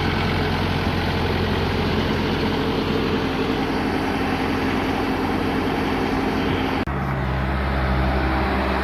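Bobcat S450 skid steer loader's diesel engine idling steadily, staying running now that its broken harness wires are repaired and the shutting-off fault is gone. The tone of the hum changes abruptly about seven seconds in.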